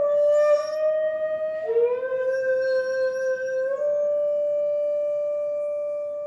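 Shakuhachi, the Japanese end-blown bamboo flute, playing a slow phrase: a held note with breathy attacks, a dip to a lower note shortly before two seconds in that slides back up, then a step up near four seconds in to a long held note that slowly fades.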